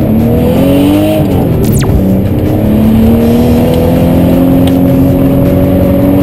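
Nissan Skyline R32's engine heard from inside the cabin under hard throttle while drifting. The revs climb, drop back about a second in, then climb slowly and hold high.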